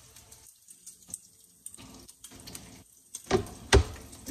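Kitchen knife slicing a bell pepper on a plastic cutting board: quiet light cuts, then two sharp knocks of the blade on the board near the end.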